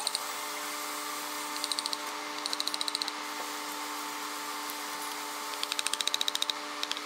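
Wooden mallet striking a chisel cutting into a solid wooden block, in three bursts of rapid, evenly spaced taps, the last near the end, over a steady machine hum.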